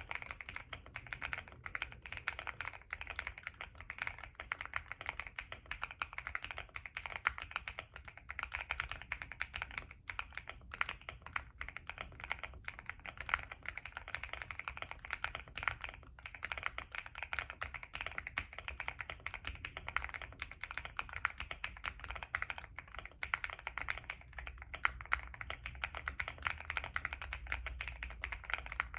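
Continuous typing on a Monsgeek M1 mechanical keyboard with stock CIY Naraka switches on POK stems, a POM plate, plate and case foam, an IXPE layer and a tape mod: a dense, steady run of keystrokes with a couple of brief pauses.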